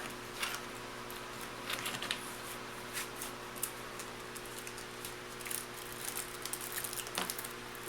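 MRE diced-pears pouch being handled and opened: scattered crinkles and clicks of the packaging over a steady low electrical hum.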